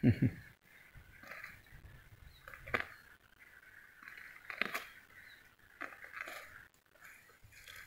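Dry rice stubble and grass crunching and rustling in short bursts, with a few sharp snaps, as hands pull and break at them.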